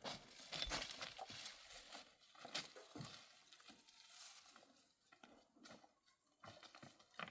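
Faint, irregular rustling and light clicks and taps that thin out over the last few seconds.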